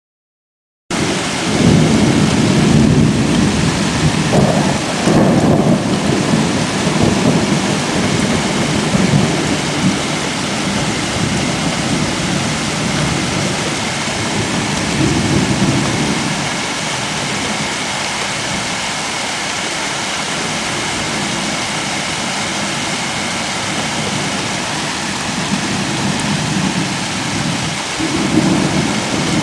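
Thunderstorm: steady rain hissing with rolling thunder, the sound cutting in about a second in. Long low rumbles of thunder swell through the first ten seconds or so, again around the middle, and once more near the end.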